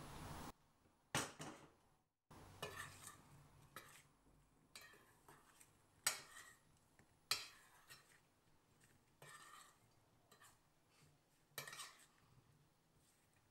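Metal spoon clinking and scraping against a small stainless steel bowl as cubes of spice-coated paneer are stirred and tossed: irregular separate clinks, a few of them sharper and louder.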